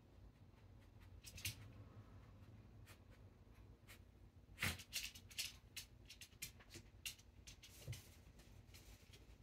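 A Maltese dog's claws scratching and clicking faintly as it paws around the floor: a few scattered clicks at first, then a busy run of them from about halfway through.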